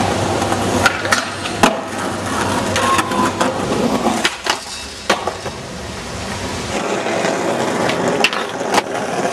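Skateboard wheels rolling over concrete, broken by a series of sharp clacks of the board popping and landing.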